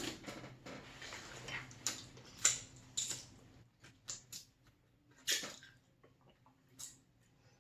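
Close-miked mouth sounds of eating cheesy pizza dip: irregular wet chewing clicks and lip smacks, the loudest a little past five seconds in, thinning out toward the end.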